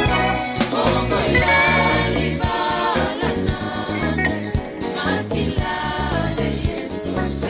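Gospel music: a choir singing over a steady, rhythmic bass line.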